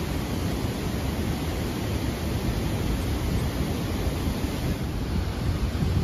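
Steady rush of floodwater pouring over a concrete weir crest, with wind buffeting the microphone.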